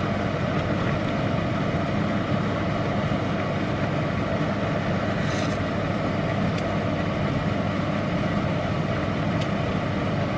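Steady bubbling rumble of a pot of noodles and a pan of soup boiling on an induction hob, with a few faint snips of kitchen scissors cutting a green chili about halfway through and near the end.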